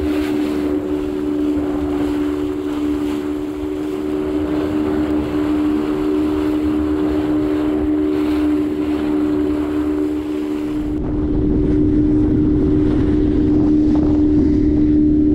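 Boat motor running steadily underway, a constant hum. From about eleven seconds in, heavier wind rumble on the microphone joins it.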